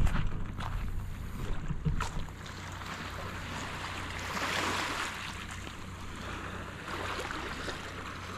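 Motorboat engine running with a steady low drone under the rush of water and wind, the rushing swelling about halfway through.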